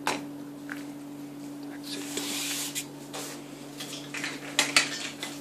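Scattered light clicks and knocks of a plastic caster wheel and the cradle's metal leg tube being handled while the wheel is pushed into the tube, with a brief rustling hiss about two seconds in. A steady low hum runs underneath.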